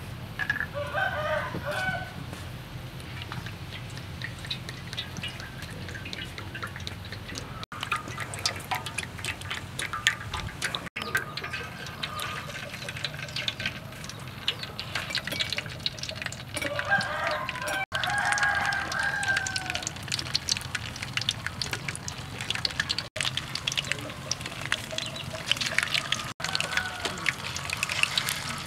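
A rooster crowing twice, about a second in and again past halfway, over the crackle of oil frying in a wok. The sound breaks off abruptly several times.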